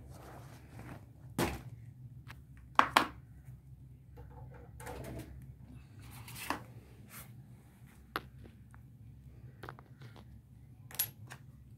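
Handling noise of a phone held close to its microphone: scattered knocks, taps and rubs as it is moved and gripped, over a steady low hum.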